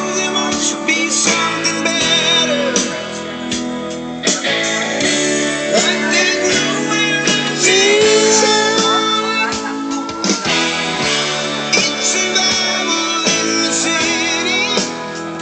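Music led by guitar, playing continuously.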